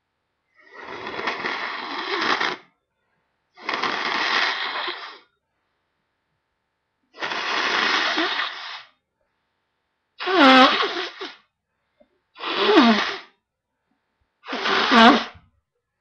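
A person blows their nose three times, each a long noisy blow of a second and a half to two seconds. Then they sneeze three times in quicker succession; the sneezes are shorter and louder, with a bit of voice in them.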